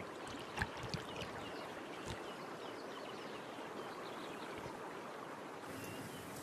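Faint, steady running-water ambience of a river, with a few small splashes in the first two seconds. The background hiss shifts near the end.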